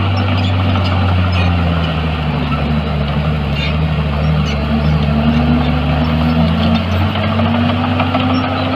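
Heavy diesel engines of earthmoving machines, a bulldozer and dump trucks, running steadily with a deep hum, their pitch slowly rising and falling as the engines change speed.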